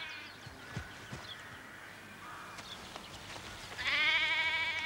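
Sheep bleating on open moorland: one quavering call about a second long, near the end, with the tail of another just at the start.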